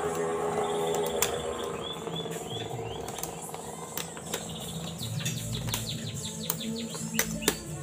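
Birds chirping in short repeated notes, with a handful of sharp metallic clicks and taps as the parts of a scooter's CVT clutch assembly are handled.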